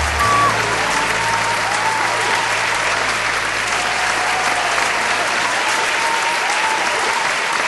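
Concert audience applauding at the end of a song, with a few voices calling out over the clapping. A low held note from the band's last chord fades away under it about two-thirds of the way through.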